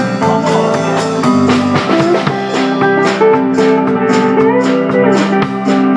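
Country band playing an instrumental break: a guitar carries the melody with sustained, bending notes over a steady drum beat.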